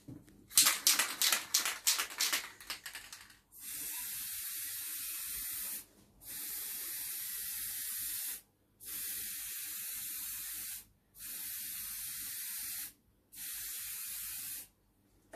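An aerosol spray-paint can shaken hard, its mixing ball rattling quickly for about three seconds, then spraying white paint in five bursts of steady hiss, each about two seconds long with short breaks between.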